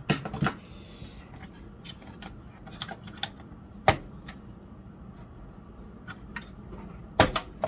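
Hard plastic and metal clicks and knocks of a graphics card being taken out of a desktop PC: a quick cluster of clicks at the start, a few light ticks, a sharp knock about four seconds in and two loud knocks close together near the end.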